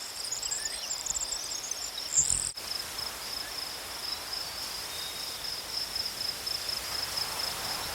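Crickets trilling steadily at a high pitch, with a few higher, separate chirps in the first two seconds.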